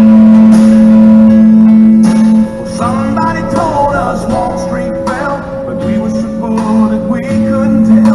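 Country song playing, a guitar-led instrumental break with no singing, over a steady hum.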